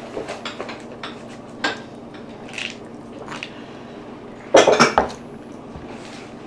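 Dishes and cutlery clinking at a meal table, scattered light clicks with a louder clatter of several knocks about four and a half seconds in.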